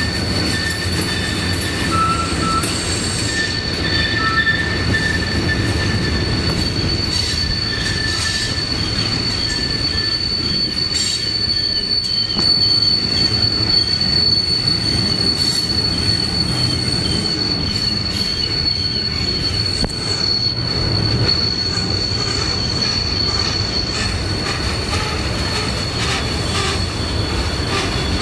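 Freight cars of a Norfolk Southern mixed train rolling past on a tight curve, their wheel flanges giving a steady high-pitched squeal over the rumble of wheels on rail. Shorter, lower squeals come and go during the first half.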